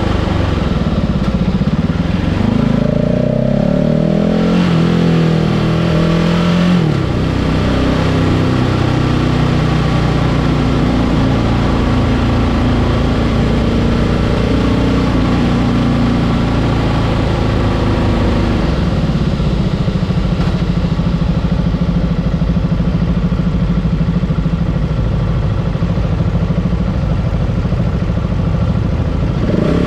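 Vehicle engine on a slow lap of a race circuit. It revs up through a couple of gear changes in the first seven seconds, then runs on at a steadier pitch over constant road and wind noise.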